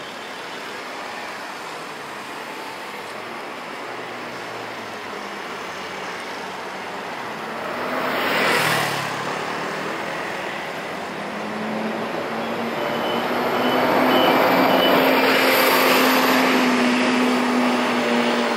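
Street traffic with a steady hiss. One vehicle passes about eight seconds in, and a motor scooter's engine hums louder as it rides past through the last several seconds.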